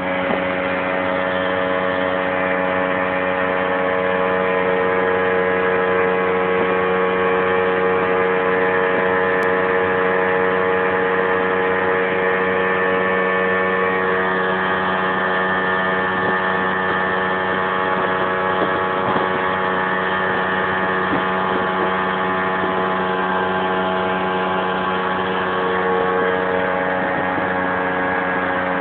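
Outboard motor running steadily at top speed on a planing boat, its pitch holding level.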